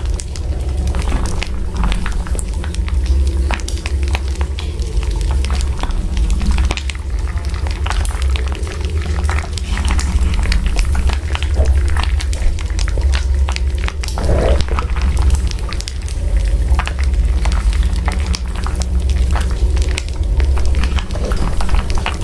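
Steady crackling and popping over a constant low rumble.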